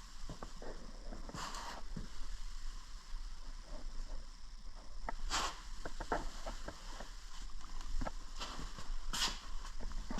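Scattered light knocks and clicks with three brief scraping or rustling noises a few seconds apart: workshop handling noise as parts are moved about.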